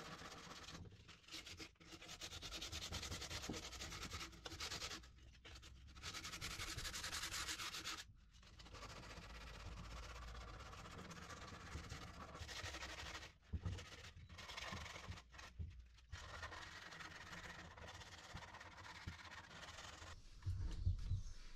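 Sandpaper rubbed by hand over the white-coated surface of a plastic jug, in stretches of scratchy strokes broken by short pauses, with a dull knock near the end.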